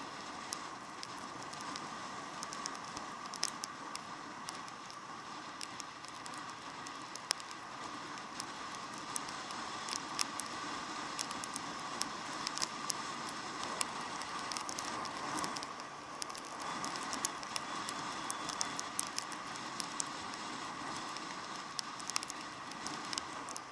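Raindrops pattering and clicking irregularly on the camera, over the muffled steady drone of a KTM Super Duke GT motorcycle riding at speed in the rain.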